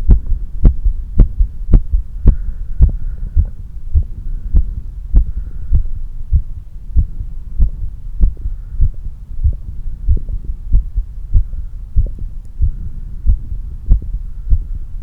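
Human heart beating after exercise, recorded close to the chest: a regular run of dull, low thumps over a steady low hum.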